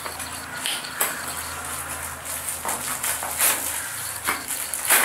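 Thin plastic packaging crinkling and rustling as a new paint roller cover is pulled out of its wrapper and handled, with a few sharper crackles, the loudest near the end.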